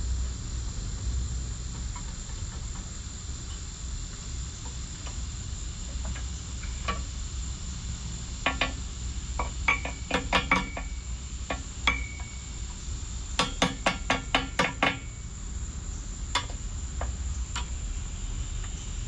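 Scattered sharp metal clinks and taps, some with a brief ring, from hardware being handled. About two-thirds of the way through comes a quick run of about seven clicks in a second and a half. Underneath is a steady high-pitched insect drone.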